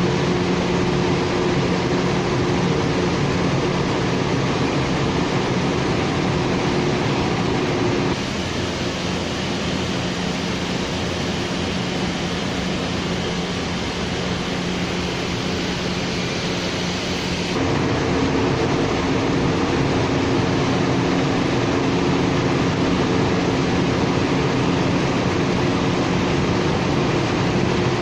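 A machine running steadily: a loud hum with several steady tones over a broad noise. The sound drops a little about eight seconds in and grows louder again at about seventeen seconds.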